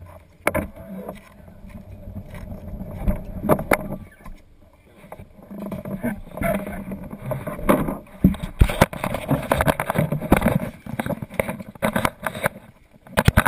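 Irregular knocks, rattles and clatter from a plastic summer-toboggan sled and the camera fixed to it, coming thicker and louder in the second half as the rider climbs out and the camera is moved.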